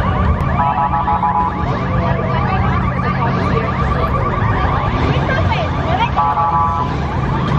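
An alarm sounding with fast repeated chirps, broken twice by short runs of steady beeping tones, set off by a car's two-step backfires. A steady low rumble runs underneath.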